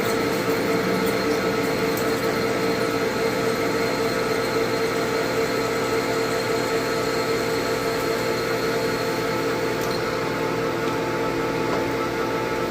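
Manual lathe running with a steady whine of many held tones while an indexable carbide insert drill (U-drill) cuts into the spinning workpiece.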